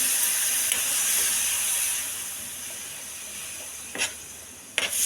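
A splash of water hitting jaggery in a hot pan, sizzling and hissing loudly and slowly dying down as the jaggery starts to melt. Two short knocks come near the end.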